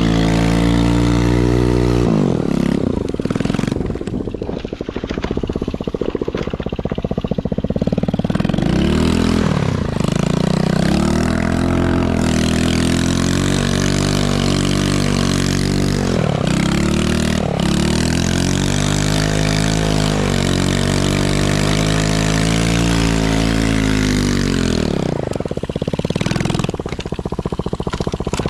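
Chinese 110cc ATV's single-cylinder four-stroke engine running hard as it is ridden, holding steady revs at first and then repeatedly dropping off and climbing again as the throttle is worked.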